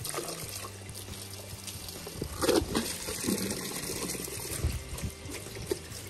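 Water pouring down a chute into the PVC inlet pipe of a pig-waste biogas digester, trickling and splashing steadily, with a louder burst about halfway through.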